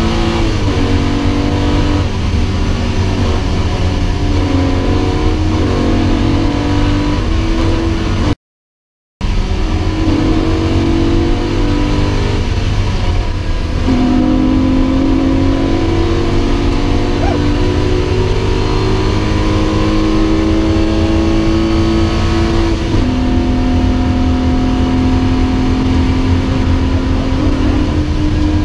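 Porsche 911 (993) 3.6-litre air-cooled flat-six heard from inside the cabin under hard driving, its note climbing in long pulls and dropping back at gear changes a few times. The sound cuts out completely for under a second about eight seconds in.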